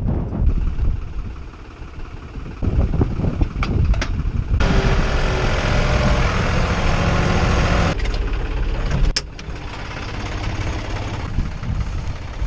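Tractor engine running steadily, with a much louder, harsher stretch of machinery noise in the middle and a few sharp knocks.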